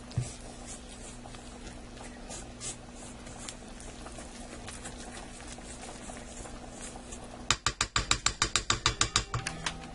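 Silicone spatula scraping flour and dough around a stainless steel stand-mixer bowl, soft scrapes and light ticks. Near the end comes a quick run of sharp, loud clicks, about eight a second for under two seconds.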